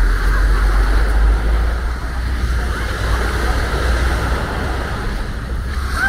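Small sea waves breaking and washing up a sandy beach, with wind rumbling on the microphone, strongest in the first second or so.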